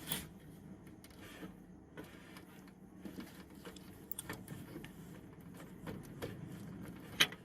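Faint handling noise and small plastic clicks from cables and connectors being fitted inside a desktop PC case. There is a sharp click just after the start and a louder, sharper click near the end.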